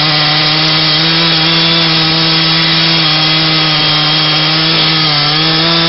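Large two-stroke chainsaw running at full throttle as it cuts into the base of a big tree trunk. A steady, loud engine whine whose pitch sags slightly now and then under the load of the cut.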